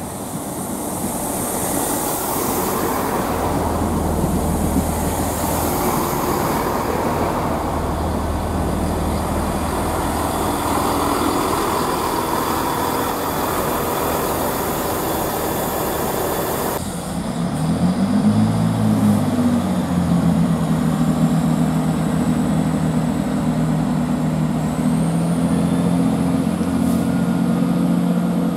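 A Class 166 Turbo diesel multiple unit running through the station at speed: a steady rushing noise of wheels and engines with a low rumble. After a sudden cut about 17 s in, a Class 166 pulls away from the platform, its diesel engines giving a steady low drone that swoops in pitch briefly, with a faint rising whine near the end.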